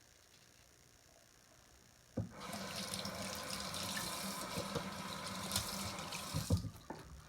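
Water tap turned on with a click about two seconds in, water running into a sink for about four seconds, then shut off near the end.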